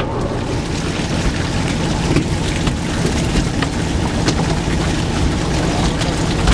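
Steady low hum of a fishing boat's engine running, with scattered splashes as fish are scooped out of a live-fish tank with a landing net.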